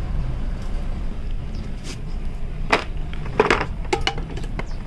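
A few light clinks and knocks of metal parts being handled, clustered about three seconds in, over a steady low rumble.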